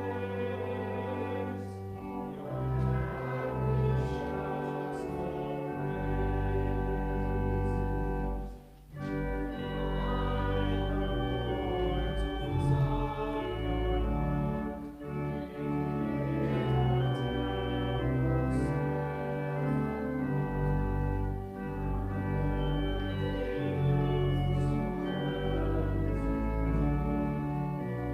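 Church organ playing a hymn in slow, sustained chords over a deep pedal bass, with a brief break between phrases about nine seconds in.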